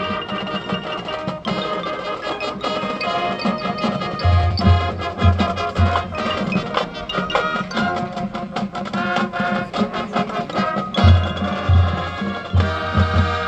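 High school marching band playing its competition show: sustained wind and brass chords over drums, with groups of heavy low drum hits in places.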